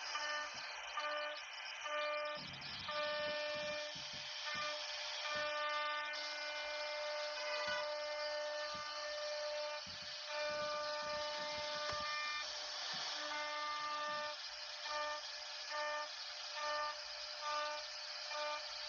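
CNC router at work: its motors whine at one fixed pitch, starting and stopping as the machine moves, over a steady hiss. Near the end the whine comes in short, regular pulses.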